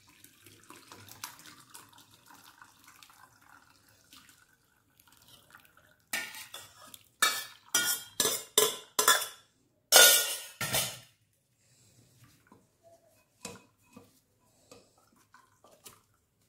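Split milk trickling faintly from a stainless steel bowl into a cloth-lined strainer, then a metal spoon scraping and knocking against the steel bowl about eight times in quick succession, clearing out the last curds. A few light clinks follow near the end.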